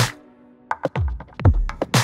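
Electronic background music with a beat of falling kick-drum thumps and sharp clicks. The beat drops out briefly just after the start, leaving a held low tone, then comes back.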